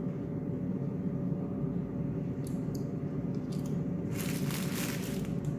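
Steady hum of an air fryer's fan running, with a short crackly crunch or rustle about four seconds in.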